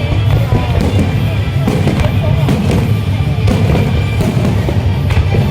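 Aerial fireworks going off in a display: several sharp bangs about a second apart over a continuous low rumble, with loud music playing.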